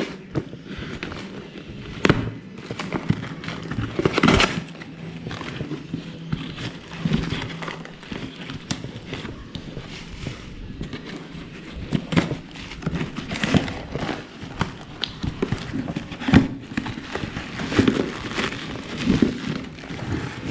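Packaging being opened and handled: irregular rustling and crinkling, with sharp knocks and crackles every second or two.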